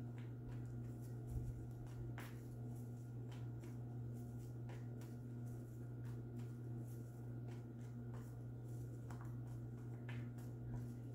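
Tarot cards being handled and shuffled: faint scattered clicks and rustles over a steady low hum.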